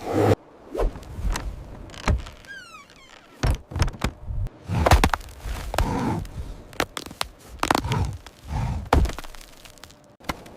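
A series of separate thuds and knocks, with a short falling squeak about two and a half seconds in.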